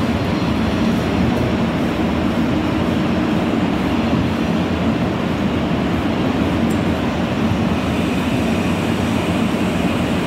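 A steady, even low rumble of room noise with no distinct events.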